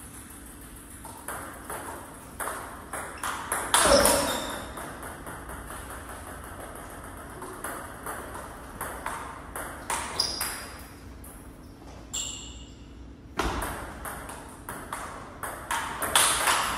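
Table tennis practice rally: the plastic ball clicks off the rubber bats and the table in quick, uneven succession, with the loudest hit about four seconds in.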